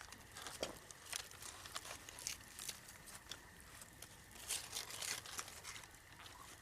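Faint, irregular crinkling and rustling, made of many small scattered crackles.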